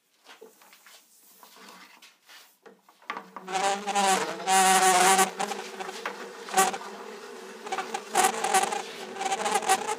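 Yellow-jacketed CSST gas tubing being pulled off its spool, which turns on a length of pipe: a pitched, buzzing rub that starts about three seconds in, after a few faint knocks, and swells and eases with the pulls.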